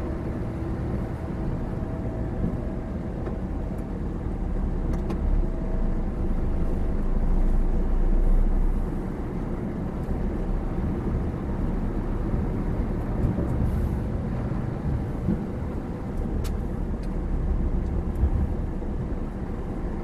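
Scania R450 truck's six-cylinder diesel engine running at low speed as the truck creeps forward, heard from the cab. It grows louder for a couple of seconds near the middle, then drops back.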